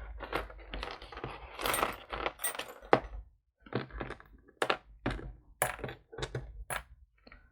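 Small metal and glass jewelry pieces clinking and clattering as they are handled and set down. The sound is an irregular run of sharp clicks, some with a brief metallic ring, with a short pause about halfway through.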